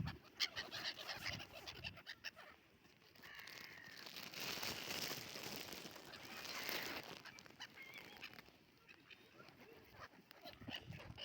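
Domestic ducks and chickens feeding, with quick clicking sounds of pecking and a few seconds of rustling noise in the middle.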